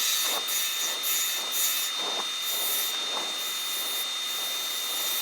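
Hand-held turning tool cutting a spinning piece of wood on a lathe: a hiss of shavings coming in short repeated passes, over a thin steady high whine.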